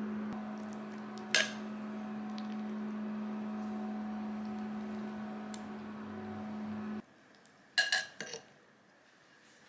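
A steady electrical appliance hum, of the kind a running microwave oven makes, cuts off abruptly about seven seconds in. A few ringing dish clinks follow shortly after, with one sharp clink about a second in.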